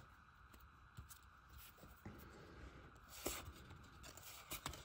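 Faint rustles and light clicks of a stack of cardboard baseball cards being handled and slid through, one card at a time, with a slightly louder flick about three seconds in.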